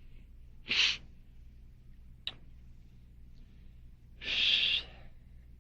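Two short breathy noises from a person close to a microphone, one about a second in and a longer one near the end, with a brief click between them, over a steady low hum.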